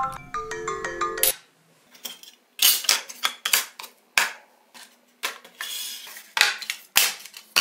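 A marimba-style ringtone melody plays for about a second and stops. Then phones and phone-shaped slabs are picked up and knocked together as they are stacked on a tabletop: a string of sharp clacks and short scrapes.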